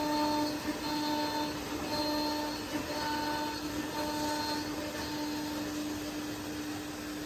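CNC drilling and milling machine running: a steady motor hum with a higher tone that comes and goes about once a second for the first five seconds or so.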